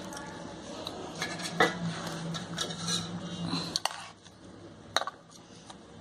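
Steel spoon and knife scraping and clinking against a pan as spiced potato stuffing is pressed into green capsicums, with a few sharp clinks, the clearest about a second and a half in and near four and five seconds. A low steady hum runs underneath and fades about four seconds in.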